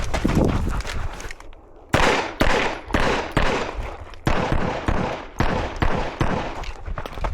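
A string of gunshots, sharp cracks with a short echo, fired roughly every half second from about two seconds in, during a shooter's timed stage run; fainter clatter comes before the first loud shot.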